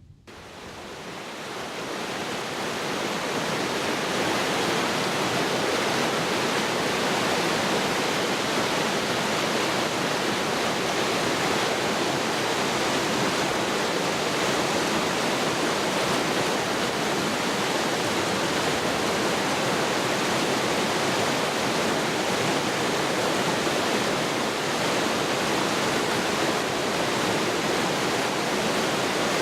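Rushing water of the Oirase mountain stream, a steady dense roar that fades in over the first few seconds and then holds even.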